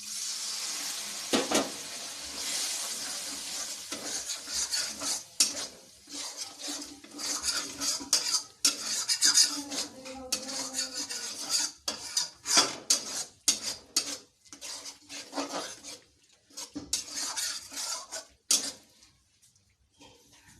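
A spoon stirring and scraping fried masala paste in a cooking pan, with many irregular clinks and scrapes against the metal. A sizzle is strongest in the first few seconds.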